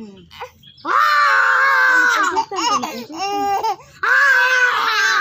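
A young child's high-pitched voice: two long drawn-out cries or wails, each over a second, with shorter wavering cries between them.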